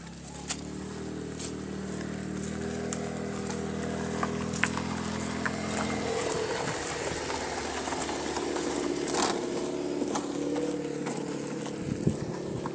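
A motor vehicle engine running steadily, its pitch shifting higher about six seconds in, with a few scattered light clicks.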